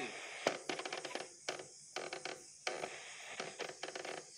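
Static and crackle from a Philips Philettina transistor radio's speaker as its tuning knob is turned between stations. The hiss comes and goes in patches, broken by sharp clicks and short quiet gaps.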